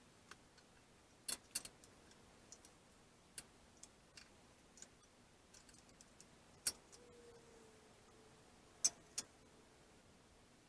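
Scattered, irregular sharp clicks and light knocks, about a dozen of them; the loudest come about a second and a half in, near seven seconds and near nine seconds. A faint steady tone runs from about seven to nine and a half seconds.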